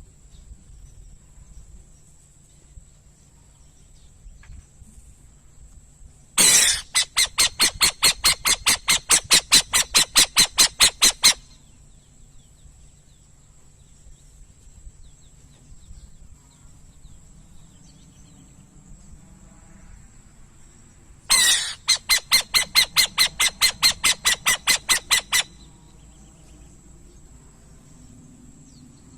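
Burrowing owl calling in two bouts, each opening with a harsh screech and running into a fast, even series of clipped rasping notes. The first bout lasts about five seconds, the second about four.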